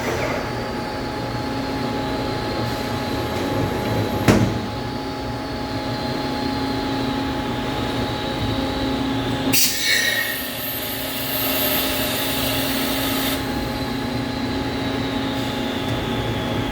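Awea/Yama Seiki SP3016 bridge-type vertical machining center's 60-position automatic tool changer swapping a tool in the CAT 50 spindle: a sharp clunk about four seconds in, then another clunk near ten seconds followed by a hiss lasting about four seconds, over the machine's steady hum.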